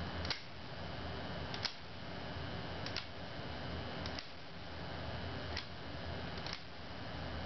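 Rotary tap-selector switch on a home-made voltage regulator clicking from position to position, six sharp clicks about a second and a bit apart, each stepping the output voltage up. Under it the transformer hums steadily.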